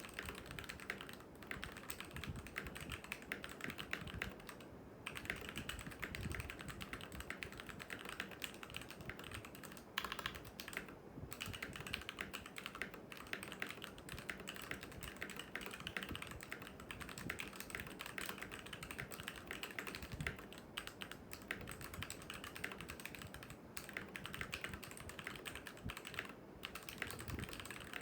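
Fast typing on a Tecware B68+ mechanical keyboard with Gateron Yellow switches: a dense, steady run of key clacks, broken by brief pauses a few times.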